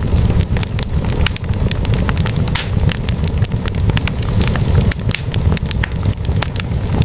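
Logs burning in a fireplace, crackling with many sharp, irregular pops over a steady low rumble of flame.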